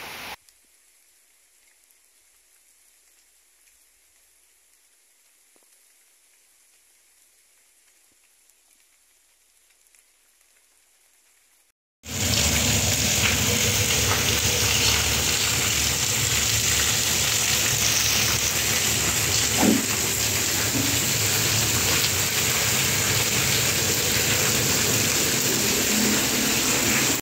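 Near silence for about twelve seconds, then rain starts in suddenly: a loud, steady, even hiss of heavy rain falling.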